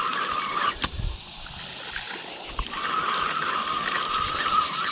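Small catfish splashing and sloshing in the water as it is reeled in and landed, with a few sharp clicks and a steady buzzing whir in two stretches.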